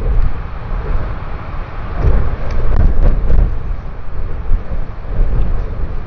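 Strong wind buffeting the outdoor camera's microphone, a low rumble that gusts louder about two seconds in and again a second later.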